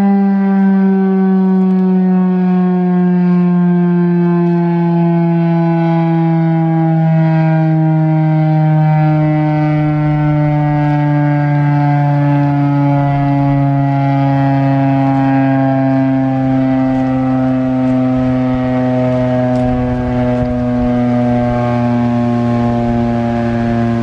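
Federal Signal STH-10 outdoor warning siren winding down at the end of a three-minute alert: its loud, steady tone slides slowly and evenly lower in pitch.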